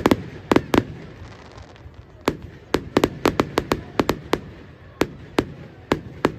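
Aerial fireworks going off: a quick cluster of sharp bangs, a lull of about a second and a half, then a run of bangs at roughly two a second.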